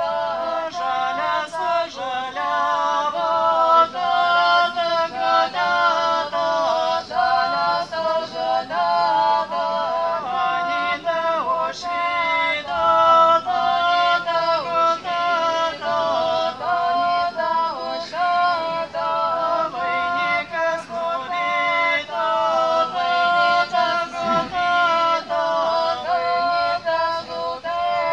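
Unaccompanied Lithuanian sutartinė, a three-part canon (trejinė) sung by a mixed group of women's and men's voices. Short repeated phrases overlap one another in close polyphony.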